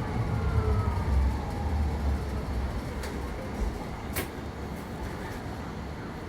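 BYD K11U electric bus: its odd, siren-like drive whine falls in pitch and dies away within the first second. A low rumble follows and fades, with one sharp click about four seconds in.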